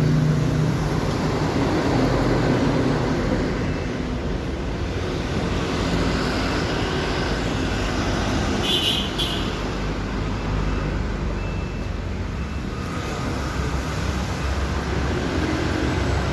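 Steady motor vehicle and road traffic noise, with a brief high-pitched tone about nine seconds in.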